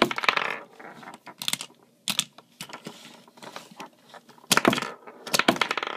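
Thunder Berga B-Daman toy marble shooter fired several times by thumb, each shot a sharp plastic click with the marbles clattering against a cardboard backdrop and tabletop. With its newly fitted spring it is still not shooting very powerfully.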